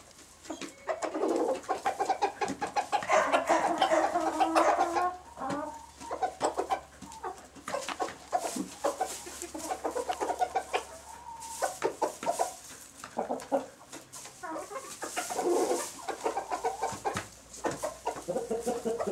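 Chickens clucking, in bouts of low, rapidly repeated calls with quieter gaps between.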